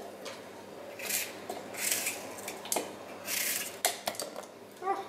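Knife cutting an apple with its skin on, held over a blender jug: three short slicing noises and a few light knocks as pieces drop into the jug.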